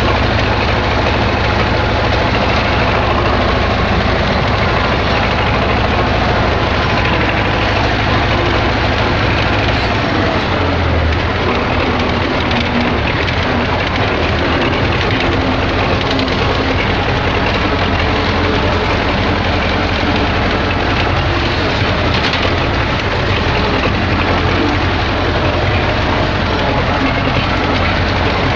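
Belarus MTZ-80 tractor's four-cylinder D-240 diesel engine running steadily, loud over a dense rushing noise; its low note shifts about ten seconds in.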